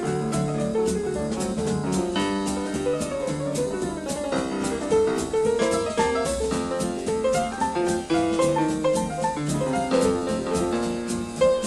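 Small jazz band playing at a lively swing tempo, with piano carrying a running melodic line over a steady drum-kit and cymbal beat.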